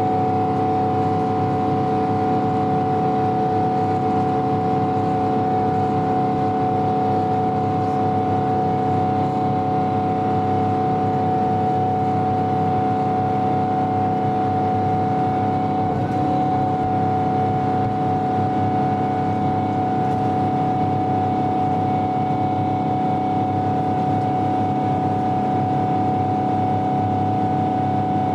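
Jet engine noise heard inside the cabin of a Boeing 777: a steady drone with a strong, constant whine over it, without rising or falling.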